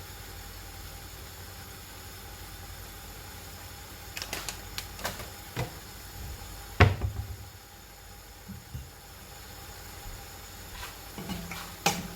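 Kitchen items being handled: a few light clicks and taps, then one sharp, much louder knock about seven seconds in, over a steady low hum.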